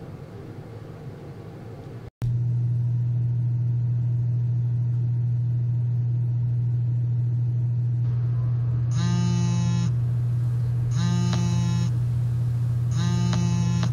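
A loud, steady low hum begins suddenly about two seconds in. From about nine seconds, an alarm tone sounds for about a second at a time every two seconds, three times in all, the kind of alarm that wakes a sleeper.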